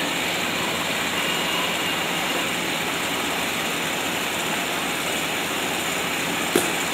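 Steady rushing whir of large caged electric fans running, with one short sharp knock near the end.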